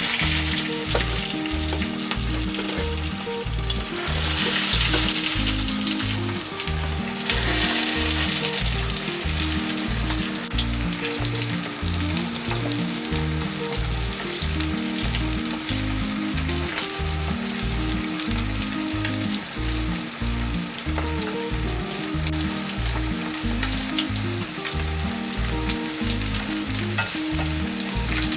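Hairtail fillets coated in dried yuba deep-frying in 180°C oil in a steel wok: a loud, steady sizzle of bubbling oil that swells louder a few times in the first ten seconds as more pieces go in.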